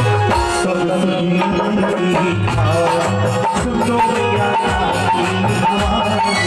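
Live Indian devotional aarti music: a harmonium and a keyboard hold sustained chords while a dholak beats a steady rhythm of low strokes.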